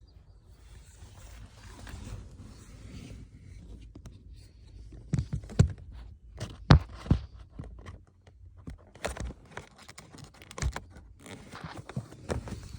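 Handling noises from work on a car's cabin (pollen) filter housing: rustling and scraping, then a run of sharp clicks and knocks, loudest a little past the middle.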